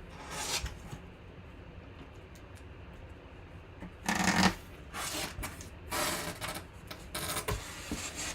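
Packaging being handled and rustled in irregular bursts, the loudest about halfway through.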